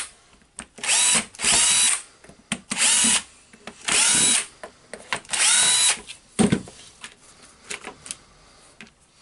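A cordless drill-driver runs in five short bursts, each spinning up with a rising whine and then cutting off, as it backs screws out of a power tool's housing. After about six and a half seconds come a knock and a light clatter of parts being handled.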